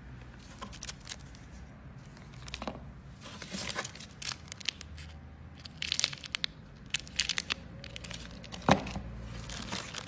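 Clear plastic packaging being handled and pulled, crinkling in irregular bursts of crackles, with one sharp loud crackle near the end.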